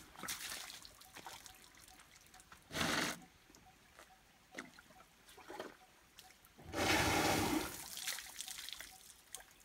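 Asian elephant squirting water from its trunk into a shallow stream: several separate splashing gushes, a short loud one about three seconds in and the longest, loudest one about seven seconds in.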